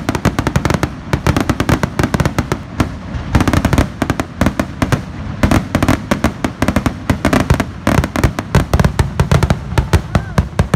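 Fireworks finale: a dense, continuous barrage of aerial shells bursting several times a second, with booms and crackling overlapping.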